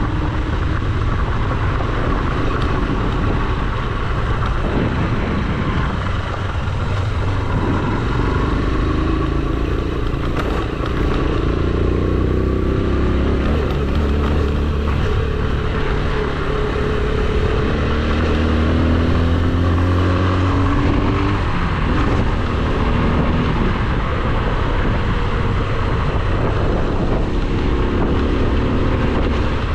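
AKT TT 200 DS single-cylinder motorcycle engine running under way, its revs climbing and dropping in several steps through the middle as the rider works the throttle and gears. A steady rush of wind and tyre noise on gravel runs underneath.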